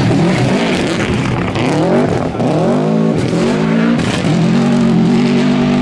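Subaru Impreza rally car's flat-four engine revving hard under acceleration on a gravel stage. The pitch climbs and drops back at each gear change, then holds high near the end, with loose gravel crackling under the tyres.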